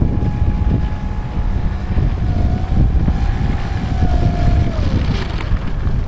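Heavy wind buffeting the microphone, over the thin whine of an RC model warplane's electric motor and two-blade propeller as it taxis. The whine holds steady, wavers a little lower, then falls away about five seconds in as the throttle comes back.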